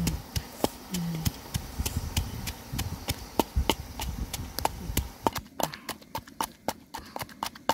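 Wooden pestle pounding ingredients in a mortar, a run of irregular knocks.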